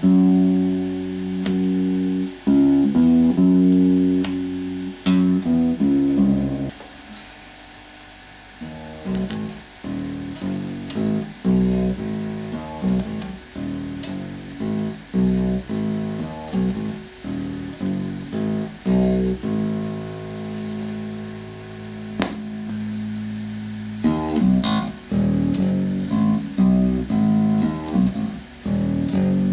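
Electric guitar with handmade humbucker pickups, played through an amplifier as picked notes and chords, heard on the single-coil setting. It goes quiet briefly about seven seconds in, then the playing picks up again.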